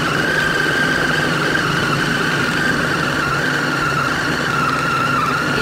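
Electric food chopper running steadily with a high, slightly wavering motor whine, its blades grinding beef, crushed ice and tapioca flour into a smooth meatball paste.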